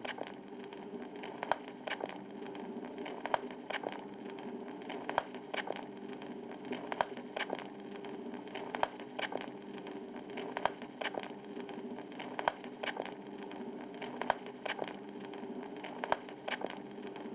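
Vinyl record crackle and hiss over a low steady hum, with a sharp click repeating about every 1.8 seconds, once per turn of a 33⅓ rpm disc: the stylus riding an empty or run-out groove.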